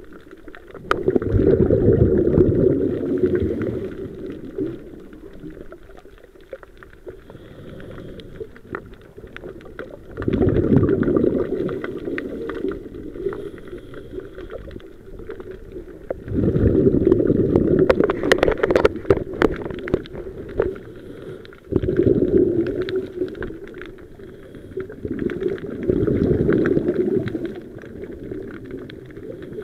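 A scuba diver's exhaled bubbles rumbling out of the regulator in five loud surges several seconds apart, heard underwater, with quieter hiss in between and scattered sharp clicks, thickest around the middle.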